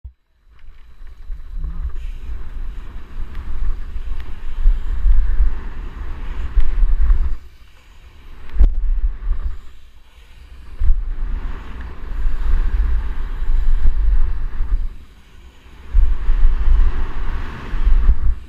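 Wind buffeting a helmet-mounted GoPro's microphone, with the rush of a BMX bike rolling fast over a dirt jump trail; the deep rumble surges and drops away several times.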